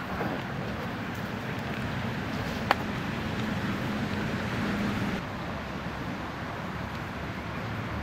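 Outdoor background noise of road traffic, with a vehicle hum that drops away about five seconds in. A single sharp click sounds a little under three seconds in.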